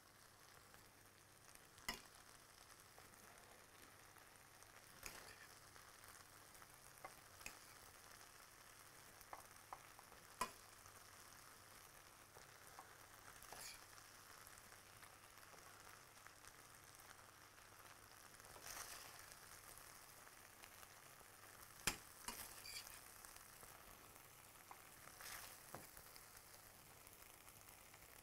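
Faint steady sizzle of sausage-and-orzo stuffing in a hot stainless frying pan, with about nine sharp clicks of a metal spoon scooping against the pan and tapping into the pepper halves, the loudest near the end.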